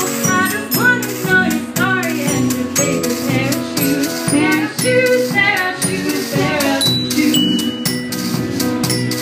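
Live band music: guitars over a steady beat, with rattling, shaker-like percussion.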